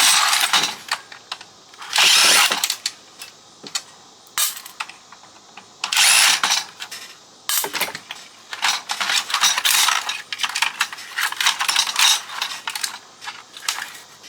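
Hand tools working on a fax machine's plastic and metal parts during disassembly: short bursts of scraping and rattling at the start, about two seconds in and about six seconds in, then a busy run of clicks and knocks through the second half.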